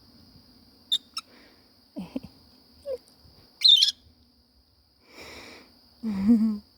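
Pet lovebirds giving a few short, sharp chirps, the loudest about four seconds in, over a steady high tone, with a brief low hum near the end.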